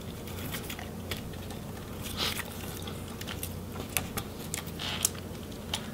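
Faint, scattered small clicks and scrapes of thin wires being worked out of the plastic retainers around a laptop cooling fan, over a steady low hum.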